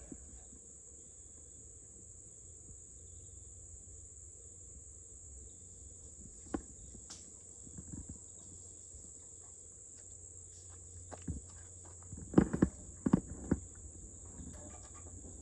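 Crickets chirping in a steady high drone, with scattered light clicks and clinks of hand tools working a hydraulic hose fitting, and a few louder sharp knocks about twelve to thirteen seconds in.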